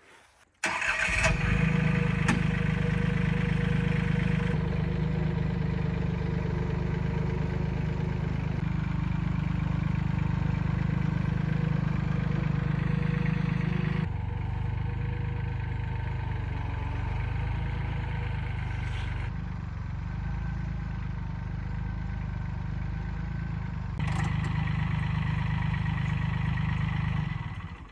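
Tractor engine running steadily, cutting in suddenly and changing abruptly a few times between clips.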